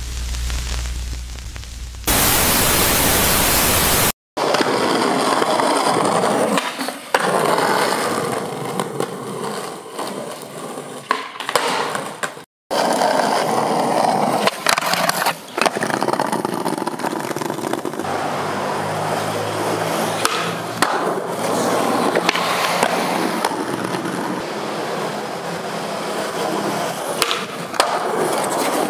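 Skateboard wheels rolling over rough concrete, with sharp clacks of the board popping and landing scattered through. About two seconds in there is a loud burst of even hiss, and the sound cuts out briefly twice where the clips are joined.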